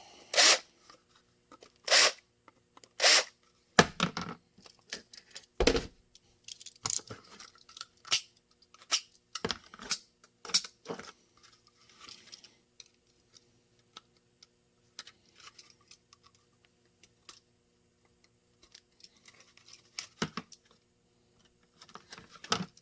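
Hard plastic and tools being handled on a workbench: a series of sharp clicks and knocks, loudest in the first six seconds, then lighter scraping and ticking, over a faint steady hum.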